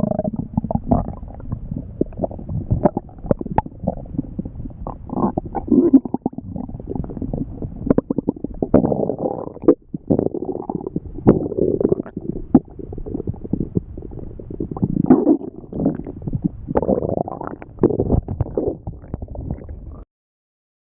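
Stomach growling and gurgling continuously, with uneven rumbles and many short sharp pops and squelches. It cuts off suddenly just before the end.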